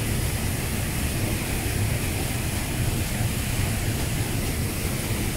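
Waterfall and river rapids rushing steadily into a pool, a continuous noise of falling water with a heavy low rumble.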